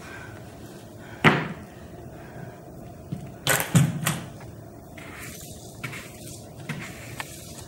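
Hard knocks on the floor: one sharp knock about a second in, then a quick run of three or four knocks about three and a half seconds in. Near the end comes a soft brushing of a broom sweeping the floor.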